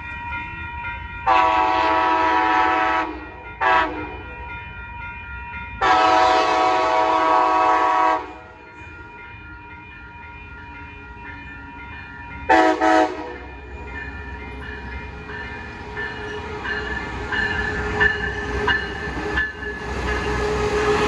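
Coaster commuter train sounding its horn for a grade crossing as it comes in: a long blast, a short one, another long blast, and a quick double toot. The rumble and wheel clatter of the train then build as it pulls into the station, with the crossing signal bells ringing steadily underneath.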